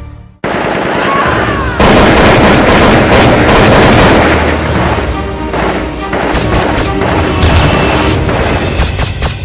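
Loud action music mixed with rapid gunfire and explosion sound effects. It starts suddenly about half a second in and grows louder about two seconds in, with quick shots near the end.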